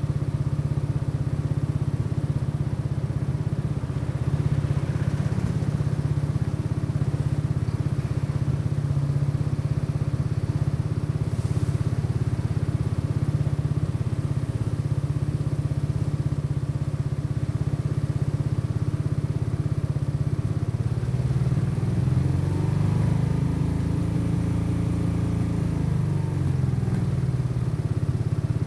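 Custom motorcycle's engine running steadily while riding. About three-quarters of the way through, the revs rise and then drop back.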